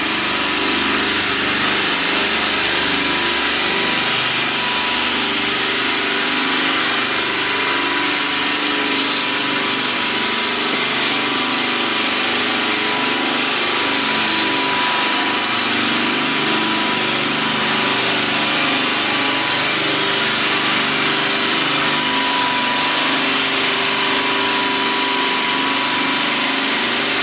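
Stone polishing machine running steadily: a constant grinding noise with a thin steady whine through it.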